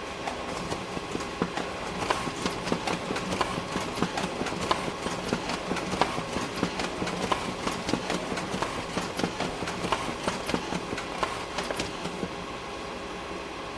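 Photocopier running a copy cycle: a steady fan hum with a few steady tones, and a rapid, irregular clicking and clattering from the paper-feed mechanism that starts about half a second in and settles back to the hum near the end.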